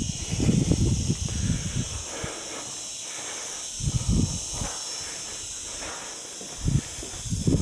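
A steady hiss, with irregular low rumbling bursts in the first two seconds and twice more later, typical of wind blowing on the microphone outdoors.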